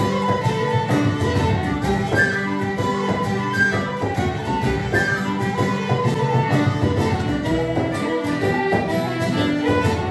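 Acoustic traditional Celtic tune played by a small session band: whistles and a fiddle carry the melody over a long-necked plucked string instrument, in a steady, lively rhythm.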